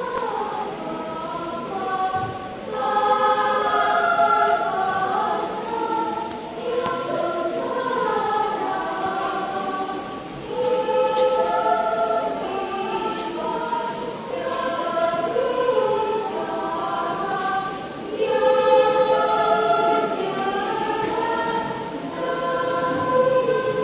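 Children's choir singing in parts, the voices moving together in phrases with short breaks between them about every eight seconds.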